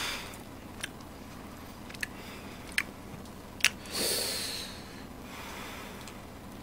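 Hands pulling apart a whole grilled fish close to the microphone: four small sharp clicks and crackles of skin and bone over the first four seconds, then one audible breath.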